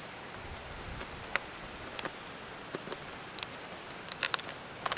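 Handling noise from a handheld camera while walking: scattered sharp clicks and crackles over a steady hiss, with a quick cluster of clicks about four seconds in and again near the end.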